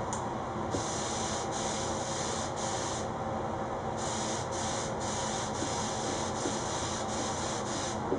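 Gravity-feed spray gun hissing as it sprays a colour coat onto a guitar body, in a run of short passes with a pause of about a second near the middle, over a steady background rush.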